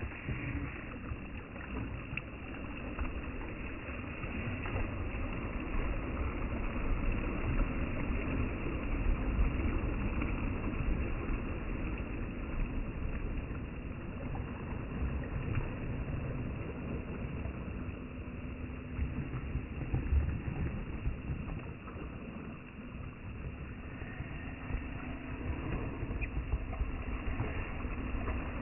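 Traxxas TRX-4M RC crawler driving over rock: its small electric motor and gear drive give a faint whine that comes and goes, over tyres scrabbling on stone and a low rumble throughout.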